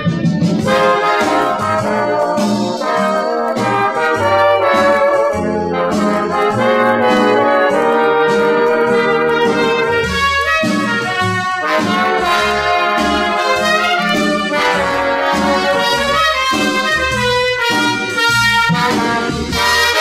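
Orchestral easy-listening music from a 1960 LP, led by a brass section of trumpets and trombones playing continuously.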